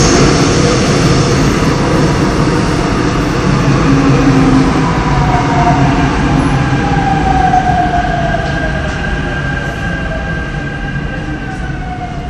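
A Seoul Subway Line 5 electric train running past the platform: a steady rumble of wheels on rail with a motor whine that glides slowly lower in pitch. The whole sound fades steadily as the train moves on.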